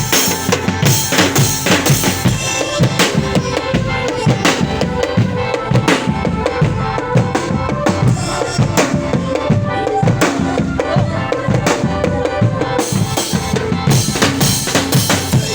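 Drum-led percussion music: many drums beat a busy, steady rhythm with a wavering melody line over them.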